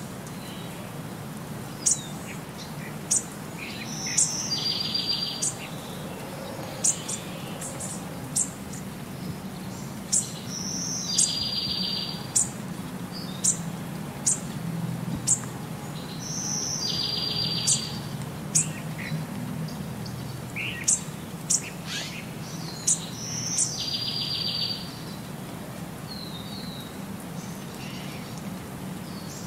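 Birds chirping in a looped birdsong track: sharp high chirps and a short rapid trill, the same pattern repeating about every six seconds.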